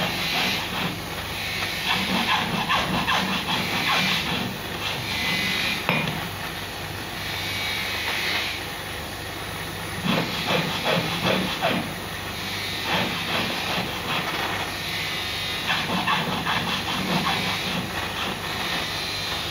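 Handheld gas soldering torch with its blue flame hissing steadily, while silver bezel mountings are soldered on the board. Irregular small clicks and knocks sound through it.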